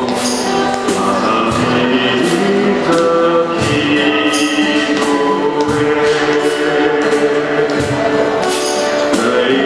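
Live acoustic band playing: two strummed acoustic guitars and a cajon keeping a steady beat under a man and a woman singing a duet.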